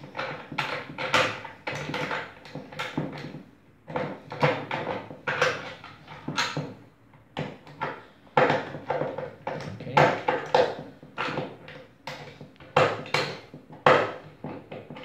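Irregular knocks, clicks and scrapes of a metal welding-jig clamp being handled and adjusted on a PVC waterstop lying on a tabletop.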